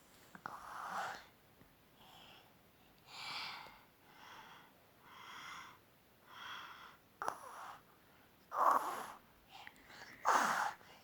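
A small child's pretend snoring: a run of breathy, wheezy in-and-out breaths, about one a second, the last two the loudest.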